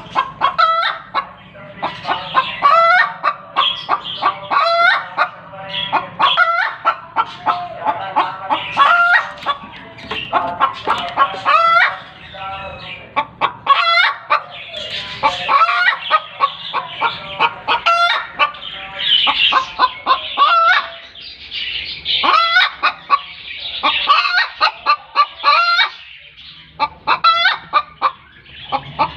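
Hen cackling loudly in rapid repeated calls, the egg song a hen gives when she lays an egg.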